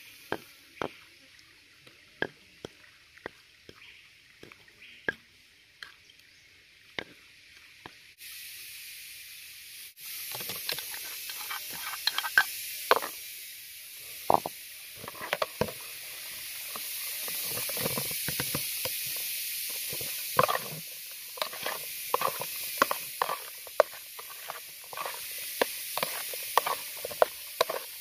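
Scattered clicks and knocks at first; from about ten seconds in, food frying in hot oil in a pan, a steady sizzle with frequent crackles and knocks.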